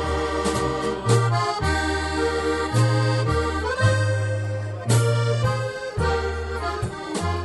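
Live polka band music led by an accordion over a bass line that steps between low notes.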